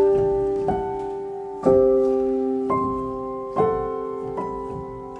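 Background music: slow solo piano, with chords struck about once a second and left to ring out.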